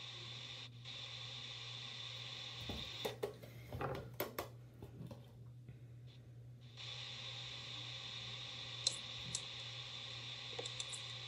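Quiet room with a steady low hum, broken by a few soft clicks and rustles of hands handling a makeup brush and scar wax, mostly about three to four seconds in, with a couple of faint ticks near the end.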